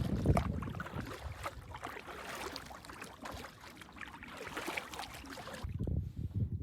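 Paddling a canoe: a paddle dipping and water splashing and trickling around the hull, with gusts of wind buffeting the microphone about a second in and again near the end.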